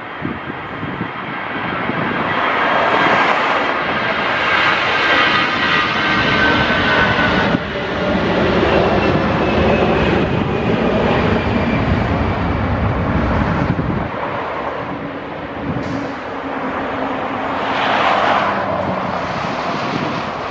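Antonov An-124's four D-18T turbofan engines running at taxi power: a steady jet roar with a high whine that drifts slowly lower. It swells louder a couple of seconds in and again near the end as the aircraft taxis and turns.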